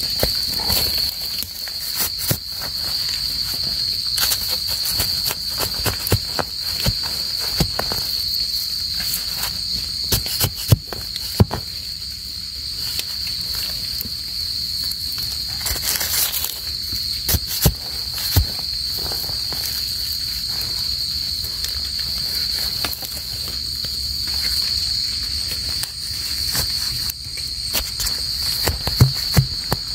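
A steady, high-pitched chorus of crickets and other night insects, with scattered crackles, snaps and rustles of steps and hands in dry leaf litter; a few sharper snaps stand out.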